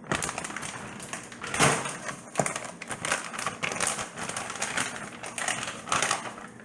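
A new pack of frozen chicken nuggets being opened and handled: plastic packaging crinkling, with an irregular run of sharp clicks and taps.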